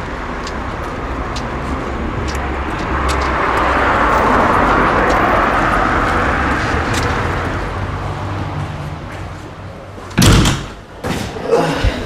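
City street traffic noise that swells as a vehicle passes, about four to five seconds in, and then fades. Near the end a loud thump, followed by a few smaller knocks.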